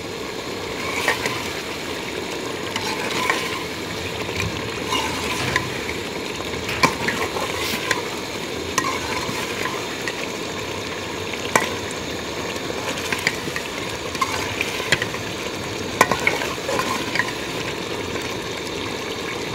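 Metal ladle stirring chicken curry as it cooks in an aluminium pot, over a steady sizzle, with scattered clinks of the ladle against the pot.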